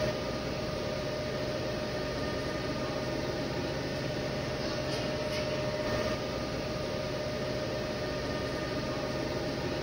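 Siemens Symbia S dual-head SPECT gamma camera's gantry drive running as the detector heads rotate and reposition: a steady mechanical hum with a constant mid-pitched whine.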